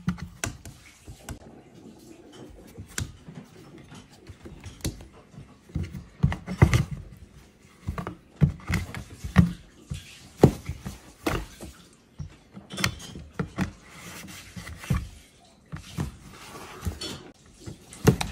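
Irregular taps and thumps on a cardboard cat house, as a hand pokes at its window and a cat bats at the hand from inside.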